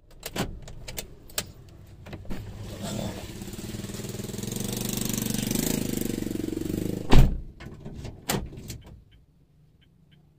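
An engine running and growing louder over a few seconds, with scattered clicks and knocks around it and a heavy thump about seven seconds in. The sound drops away to near silence about nine seconds in.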